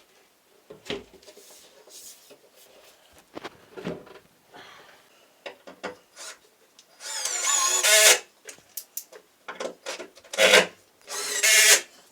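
Bedding being spread over a wooden bed: rustling and rubbing throughout, with a few louder swishes in the second half.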